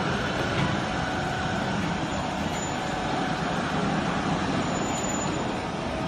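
Household baler's hydraulic power unit running with a steady hum as the press plate pushes down on the load.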